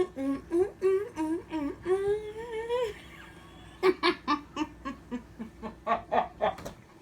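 A woman humming a wavering tune with her mouth closed, the contented humming of someone enjoying their food. About four seconds in it turns into a quick string of short hummed pulses, about four a second.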